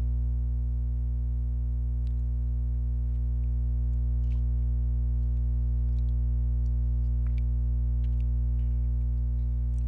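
Steady low electrical mains hum with a ladder of overtones, a constant buzz in the recording. A few faint clicks sound over it.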